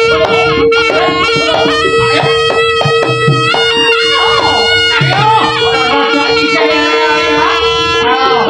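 Live East Javanese jaranan accompaniment: a shrill reed trumpet (slompret) plays a winding, sliding melody over low drum beats and a steady held note underneath.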